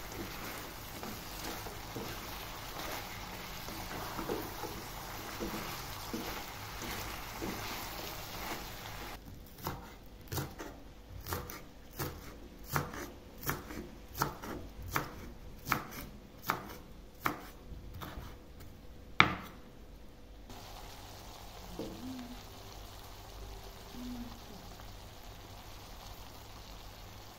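Chicken and lemongrass sizzling in a wok, then a kitchen knife chopping green onion tops on a wooden cutting board: about a dozen steady chops, one every second or less, the last one the loudest.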